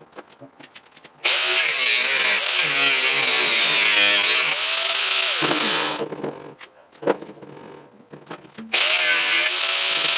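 A grinder fitted with an abrasive cutoff wheel cutting into an electric motor's copper field windings, in two loud spells of grinding whose pitch sags and wavers as the wheel loads up. Between them, about four seconds in, come a few clicks and knocks.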